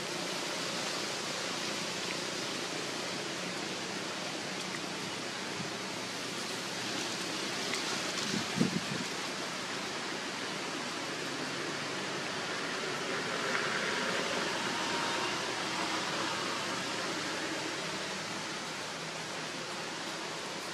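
Steady outdoor background hiss, with one short low knock about eight and a half seconds in.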